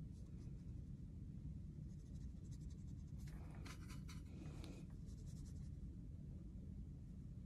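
Faint scratching and rubbing of a paintbrush, stroking across watercolor paper and scrubbing paint in a plastic palette's mixing well, loudest about three to five seconds in. A steady low hum runs underneath.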